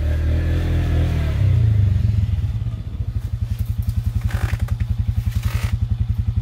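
A low motor-like rumble that settles, about three seconds in, into an even throb of about nine or ten pulses a second, with two short rustles near the middle.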